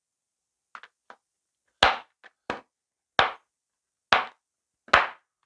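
A knife chopping a block of chocolate on a wooden cutting board. A few light taps, then five sharp chops, roughly one every three-quarters of a second.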